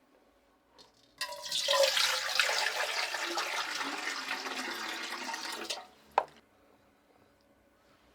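Water pouring in a steady rush for about four and a half seconds, starting suddenly and tailing off, followed by a single sharp click.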